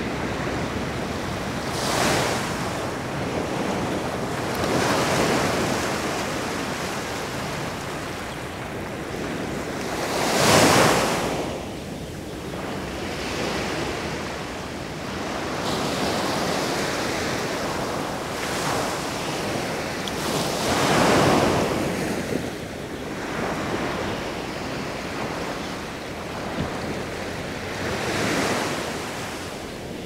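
Sea waves breaking on a beach: a steady wash of surf that swells as a wave comes in every few seconds, the loudest about ten seconds in.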